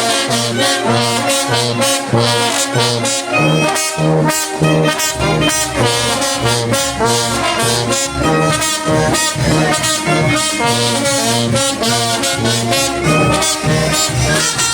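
Mexican brass band (banda de viento) playing a huapango medley: trumpets and trombones carry the melody over a pulsing bass line, with the low end growing heavier about five seconds in.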